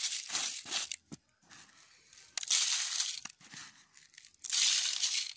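Dry soil mixed with rice hull being spread and rubbed by hand into the cells of a plastic seedling tray: three scratchy, rustling bursts, each under a second, with quiet gaps between.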